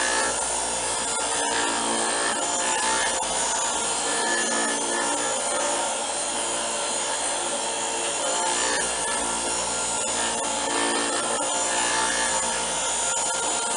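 A motor-driven device running steadily: a rough, even noise with a steady hum in it.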